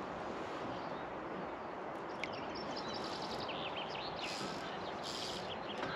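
Small birds chirping and trilling intermittently over a steady outdoor background hiss, with two brief swells of higher hiss in the second half.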